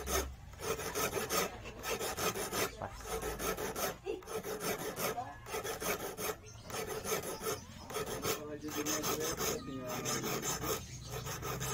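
A small hand file rasping on a notch in a small steel piece, in repeated strokes at about one a second with brief pauses between them.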